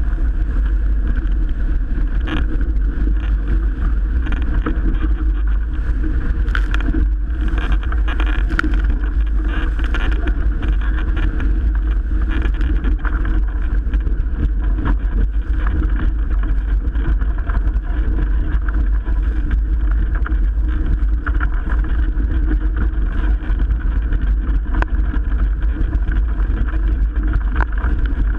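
Strong wind rumbling steadily on the microphone over water rushing along a Melges 24 sailboat's hull in 30-plus-knot winds, with several sharp slaps about 6 to 10 seconds in.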